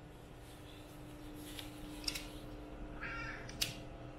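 A cat gives one short meow about three seconds in. Around it come two sharp snips of pet nail clippers, about a second and a half apart.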